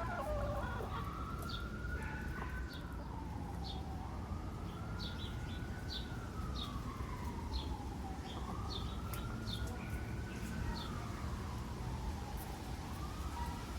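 A siren wailing, its pitch slowly falling and rising again about every four seconds, with short high chirps and clucks from backyard hens over it.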